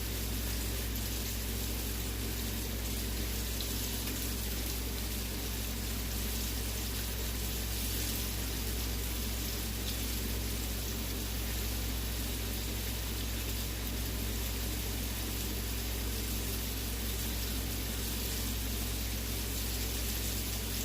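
Chicken pieces frying in hot oil in a pan: a steady, even sizzle, over a low steady hum.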